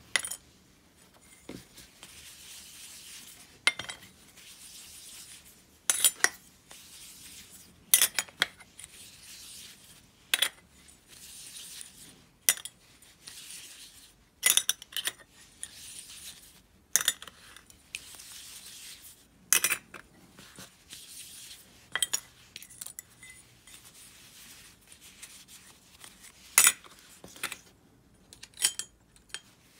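Small metal parts of a disassembled Abu Garcia Ambassadeur 5500 DA baitcasting reel clinking against each other and their container while being cleaned. There are sharp clinks every second or two, with a soft hiss between them.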